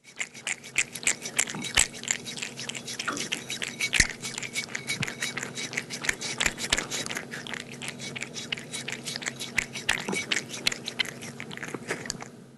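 An animal chewing, a dense run of irregular crunching clicks over a faint steady hum.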